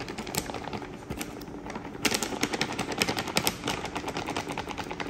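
Plastic flour packet crinkling in quick, rapid crackles as it is shaken and tipped to pour flour into a glass bowl. The crackling gets louder about two seconds in.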